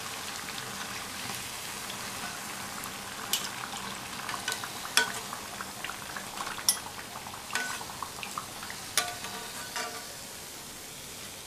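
Rava bondas deep-frying in hot oil, a steady sizzle. A few sharp metal clinks cut through it as a spatula and a wire skimmer touch the pan while the bondas are turned and lifted out.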